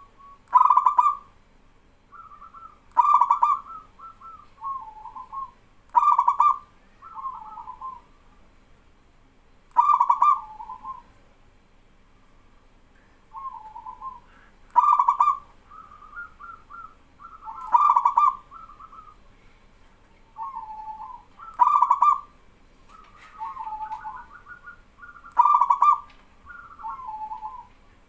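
Zebra doves (perkutut) cooing back and forth: a loud bubbling coo phrase about every three to four seconds, eight in all, with quieter coos from another dove in between.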